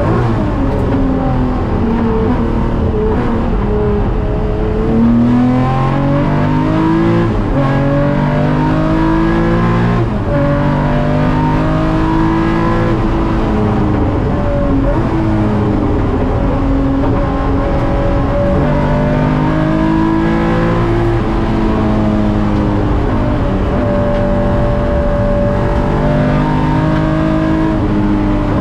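Nissan S30 Fairlady Z's tuned 3.1-litre L28 straight-six with Solex carburettors at racing speed, heard through an onboard camera microphone. The revs climb and fall back again and again, with sudden drops in pitch at gear changes.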